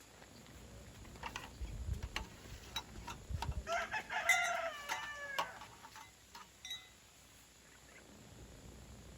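A rooster crowing once, about four seconds in, over scattered faint clicks and a couple of low thumps.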